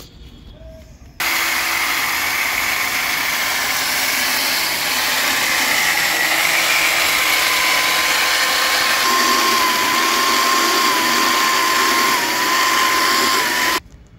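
Sawmill trolley saw running and cutting wood: a loud, dense machine noise with a steady whine that wavers slightly. It starts abruptly about a second in and cuts off abruptly near the end.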